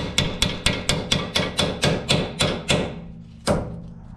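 Steel hammer striking a nut threaded onto a seized tapered suspension stud, about four ringing metal-on-metal blows a second, with a short pause and a single blow near the end. The stud is stuck fast in its joint and is not coming loose.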